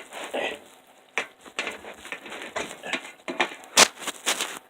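Irregular rustling, scraping and clicking of things being handled, with one sharp click a little before the end.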